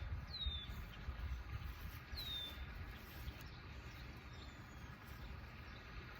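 A bird gives short, high chirps that fall in pitch, twice and then once more faintly, over a steady low rumble.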